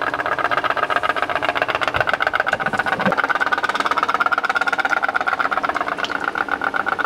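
Homemade pop-pop (putt-putt) steam boat engine running, heated by a candle, with a fast, steady putt-putting.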